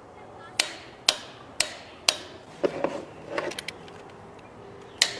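Hand wrench tightening bolts on an engine's timing-chain assembly: sharp metallic clicks about two a second, with a quicker cluster of clicks in the middle.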